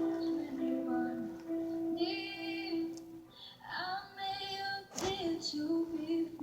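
A young female voice singing a slow melody, holding long notes that waver slightly in pitch. There is a brief sharp click about two-thirds of the way through.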